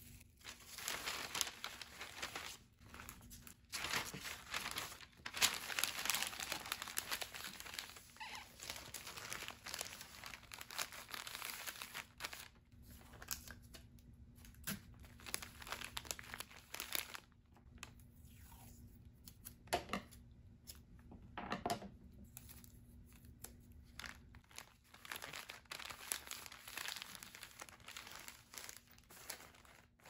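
Brown kraft paper bag being handled, folded and creased by hand: irregular crinkling and rustling that comes and goes with short pauses, with a couple of sharp clicks about two-thirds of the way through.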